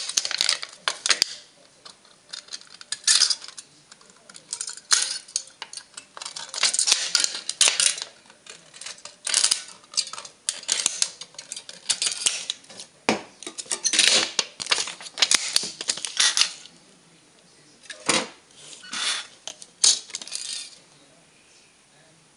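Scissors cutting thin aluminium soda-can metal: a dense run of sharp snips and metallic crinkling that thins out after about 16 seconds to a few scattered clicks, dying away near the end.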